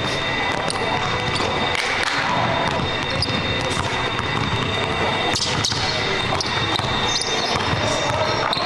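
A basketball being dribbled and bounced on a hardwood court, a string of sharp bounces at an uneven pace.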